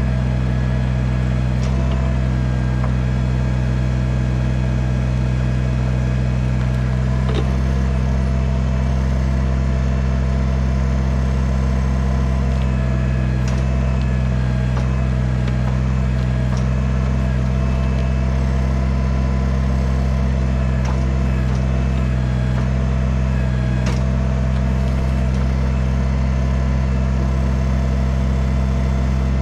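Kubota BX compact tractor's three-cylinder diesel engine running steadily, with a few faint knocks now and then.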